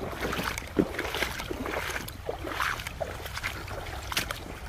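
Footsteps crunching over a beach of pebbles and broken shells, an irregular run of short crunches and clicks.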